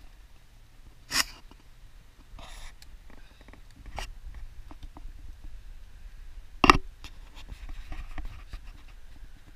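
A pack of dogs moving about on a forest trail: scratchy scuffing and rustling of paws on dirt and litter, with two short sharp knocks, one about a second in and a louder one past the middle.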